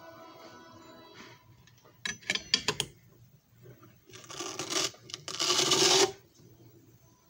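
Hard plastic clicks and clatter of a CD jewel case and disc being handled, a quick run of sharp clicks about two seconds in. Two spells of loud scraping, rubbing noise follow, about four to six seconds in.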